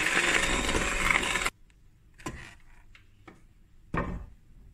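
Electric hand mixer running with its beaters in butter and sugar, a steady whirring churn that cuts off suddenly about a second and a half in. A few short knocks follow.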